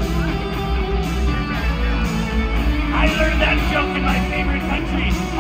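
Loud rock music with guitar and held chords. Singing comes in about three seconds in.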